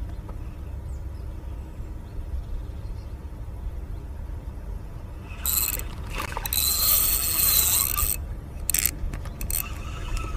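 Spinning reel cranked on an ultralight spin rod: mechanical whirring with a thin high whine for about three seconds, starting about halfway through, then two short bursts, over a steady low rumble.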